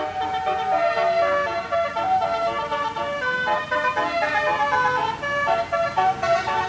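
Basuri musical bus horns on two buses playing a tune together, a run of held notes stepping up and down, with several notes sounding at once over a low engine rumble.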